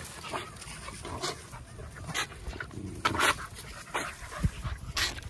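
American bully dogs panting in short breaths, roughly one a second, as they jump and bite at a burlap tug toy hung above them.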